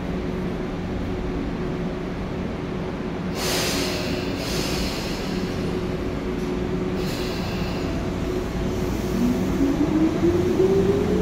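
Electric train at a station: a steady running hum, two bursts of hiss about three and a half and seven seconds in, then a rising whine from the traction motors as the train starts to pull away.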